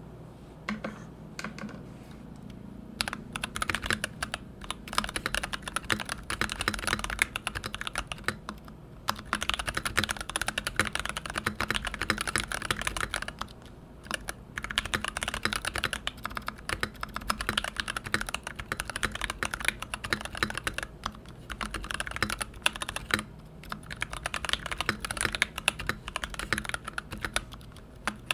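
Typing on an NK65 Entry Edition mechanical keyboard with lubed and filmed Koala tactile switches and PBT keycaps: a few separate keystrokes, then fast continuous typing from about three seconds in, with a few brief pauses. The board sounds a little higher-pitched.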